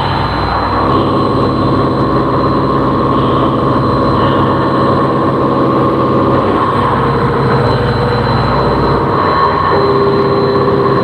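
CNC vertical machining centre running, a steady mechanical hum with several steady tones. The tones shift about a second in, around six seconds in, and again near the end.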